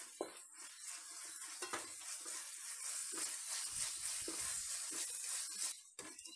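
Onions, tomatoes and ginger-garlic paste sizzling in hot oil in an aluminium pot, with a wooden spatula stirring and scraping them against the pot. The sizzling cuts off shortly before the end.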